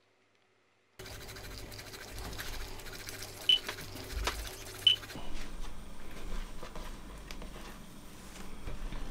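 After about a second of near silence, hard cheese is scraped on a small metal hand grater, a dense scratching, with two short high clinks, the loudest sounds. From about five seconds in there is a quieter rustle of thin dough being handled and folded on a wooden board.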